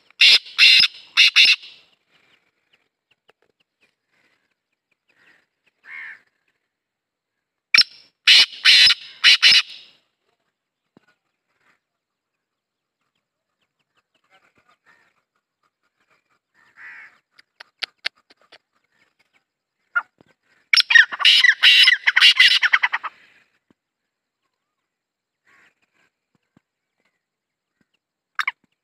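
Male black francolin calling: three loud phrases, each a quick run of sharp notes lasting about two seconds, at the start, about eight seconds in and about twenty-one seconds in. A few faint single notes fall between them.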